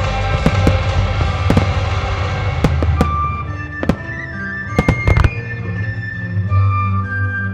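Aerial fireworks bursting over background music with sustained melody notes. Dense crackling fills the first few seconds, then a handful of separate sharp bangs, clustered about five seconds in.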